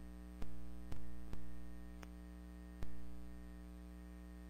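Five sharp clicks, unevenly spaced over the first three seconds, each dying away quickly, over a steady electrical hum from the computer recording setup.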